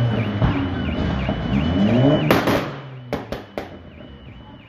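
A car engine revved repeatedly, its pitch sweeping up with each blip of the throttle. About two seconds in the revving stops with a loud bang, followed a second later by three sharp cracks. A warbling high tone, like a car alarm, runs underneath.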